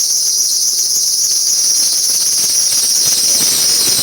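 Hyundai Tucson drive belt squealing steadily and high-pitched at the power-steering pump pulley as the steering wheel is turned with the engine idling: the belt slipping, which the owner traces to a slack alternator belt tensioner rather than a faulty pump.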